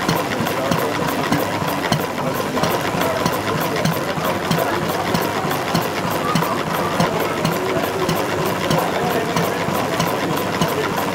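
Model horizontal stationary engine with twin red flywheels running steadily, with a quick, even, rhythmic clatter.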